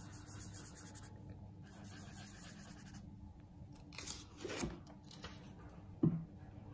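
Paper being handled over a quiet room: a short rustle a little past halfway and a brief light knock shortly before the end.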